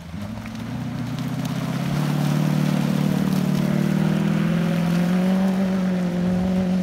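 Comp safari off-road car's engine running hard under load, wheels spinning in the mud; its pitch climbs slowly and then holds, getting louder about two seconds in.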